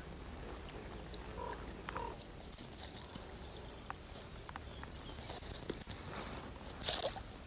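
Dry reeds and grass crackling and rustling as a mesh fishing keepnet with freshly caught fish is handled at the water's edge, with many small crackles and a louder burst of noise about seven seconds in.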